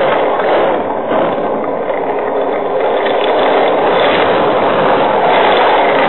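Storm wind and heavy rain making a loud, steady roar, picked up by a security camera's microphone.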